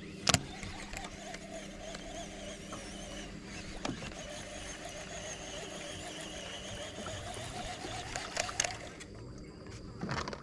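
Baitcasting reel being cranked to retrieve the lure: a steady gear whir that wavers with the winding speed. It follows a sharp click just after the start, and stops near the end with a few clicks as the rod is cast again.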